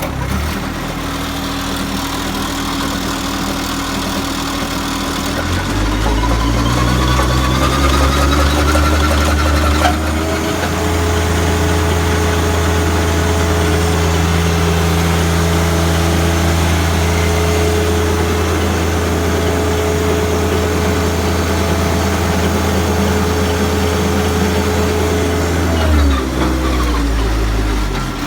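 Tractor engine driving a Woodland Mills WG24 PTO stump grinder on its first run. It starts at idle, spins up with a rising whine over a few seconds about six seconds in, and runs steadily at speed. Near the end it winds down.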